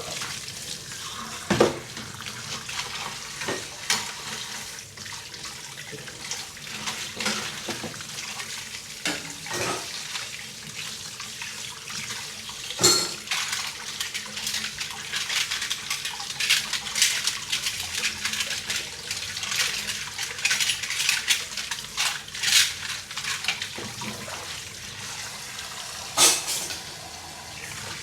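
Dishes being washed by hand in a sink: steady running water with frequent clinks and knocks of dishes against each other and the sink, a few of them louder.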